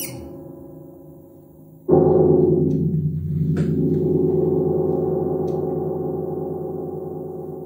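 Synthesizer music from a modular rig led by a Moog Subharmonicon. A fading tone gives way, about two seconds in, to a sudden low gong-like chord that holds and slowly dies away.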